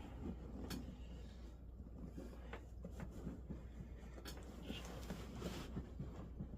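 Faint handling sounds of hands working on a seat: light scratching and rustling, with three sharp clicks spread through, over a low steady hum.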